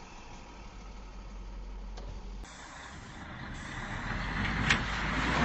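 Faint steady low hum inside a car, then, after a cut, a coach bus's engine running and growing steadily louder, with one sharp knock near the end.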